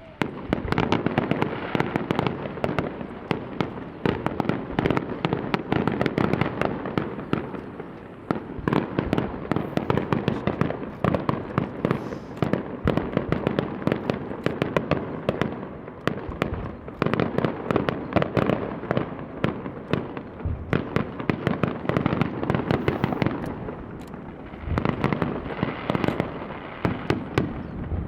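Fireworks display: a dense, rapid barrage of shell bursts and crackles. It starts suddenly about half a second in and keeps going, easing briefly three times before building again.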